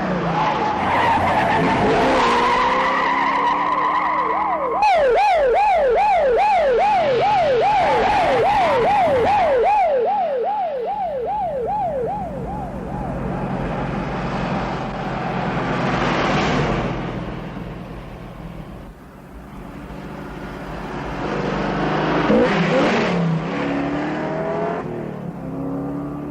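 Car chase: a car engine revving hard with tyres squealing. About five seconds in, a siren joins, wailing in quick up-and-down sweeps for about seven seconds, then the engine and tyre noise rise and fall.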